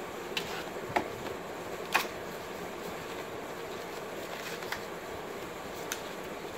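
Cardboard and paper packaging handled by hand: a few light taps and rustles, two sharper taps about one and two seconds in, as an earbud box's inner cardboard tray is lifted out and a small paper packet is pulled from it. Under it runs a steady hum of room noise.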